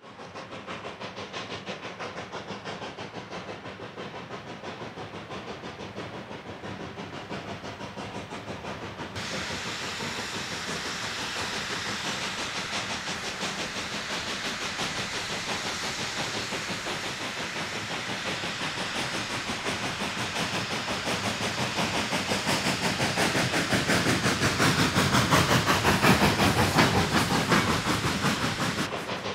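Baldwin K36 2-8-2 narrow-gauge steam locomotive working upgrade, a fast, steady beat of exhaust chuffs with hissing steam. It grows louder as it draws close, loudest near the end.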